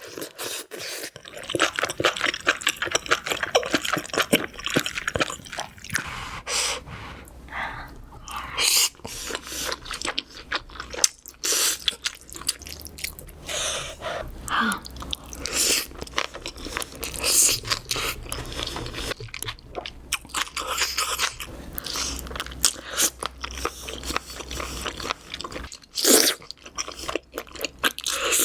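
A person eating seafood-boil food close to the microphone, chewing and crunching, with many sharp, irregular bite and crunch sounds.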